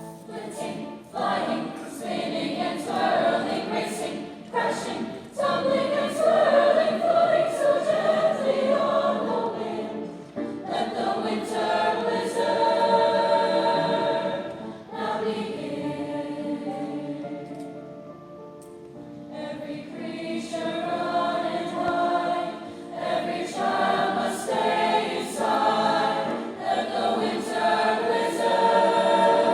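School chorus singing in parts. The voices soften for a few seconds past the middle, then swell again.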